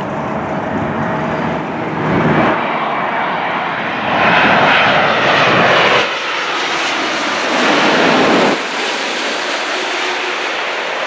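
Jet noise from a Boeing 787-9 airliner's Rolls-Royce Trent 1000 turbofans as it passes low overhead on final approach, gear down: a loud, steady rushing roar that swells several times, with sudden steps in level.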